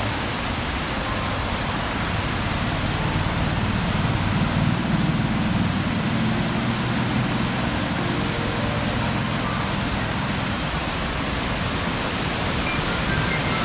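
Waterfall of water cascading over rock, a steady rushing and splashing with slight swells in the low rumble.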